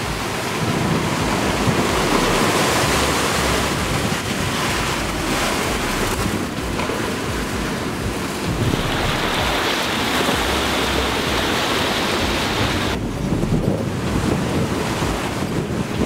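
Strong wind buffeting the microphone over the rush of breaking waves around a sailboat in heavy seas. A brighter hiss builds for a few seconds past the middle, then drops away suddenly.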